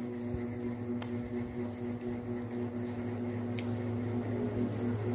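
Steady electrical hum with a faint high whine over it, and a few faint clicks.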